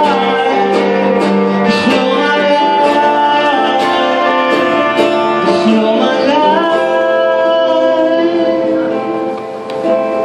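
Live acoustic guitar accompanying a male voice singing a song, with long held notes that slide between pitches; the music dips briefly in volume near the end.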